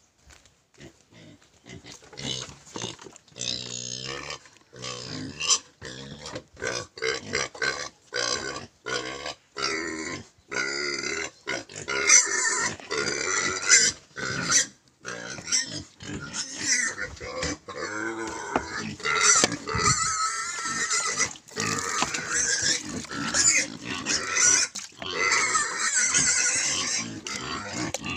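Pigs squealing at feeding time: many short, high calls that grow denser and louder about halfway through, while their slop feed is being mixed.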